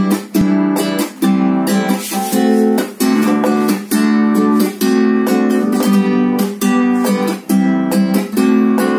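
Classical nylon-string guitar strummed, playing chords in a steady rhythm.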